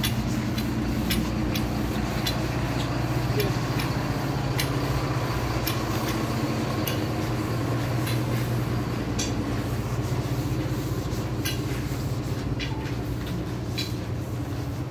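City bus engine running close by with a steady low hum, with scattered sharp clicks over it.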